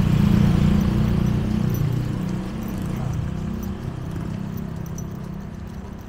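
A motor vehicle's engine passing close by and fading away, its low hum dropping steadily in level.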